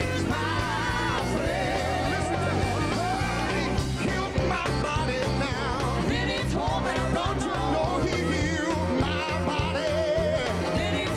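Live southern gospel singing with vibrato over a band with a steady, pulsing bass beat.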